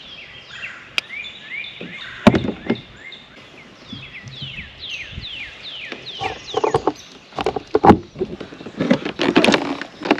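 Knocks and clatter of fishing gear being handled in a kayak, the loudest knocks about two seconds in and again near eight seconds. A songbird sings runs of quick descending whistles at the start and again around the middle.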